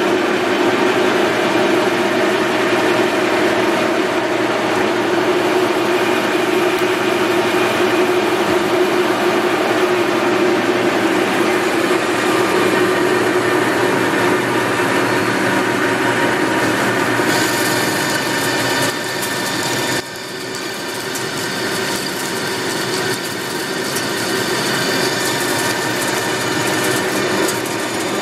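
Rockland engine lathe running under power, its chuck spinning, with a steady mechanical hum and a few held tones from the headstock gearing and 7.5 kW motor. About two-thirds through the sound turns brighter and hissier, dips suddenly and then builds back up.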